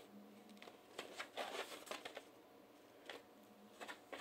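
Cardboard vinyl record jackets being handled: soft rustling and short sliding scrapes as an LP sleeve is set down and the next one picked up.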